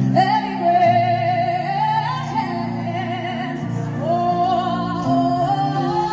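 A woman singing a gospel song live into a microphone over sustained chord accompaniment, in two long phrases with a wavering, slowly rising melody.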